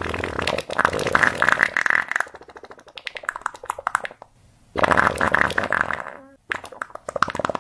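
A run of farts: a long rattling one that fades into a quieter crackling tail about two seconds in, then two shorter farts after brief pauses in the second half.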